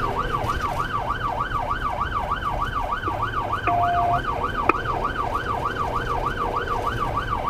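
Police siren in its fast yelp mode, rising and falling about four times a second, heard from inside the patrol car's cabin over a low engine rumble. A short steady beep sounds about halfway through.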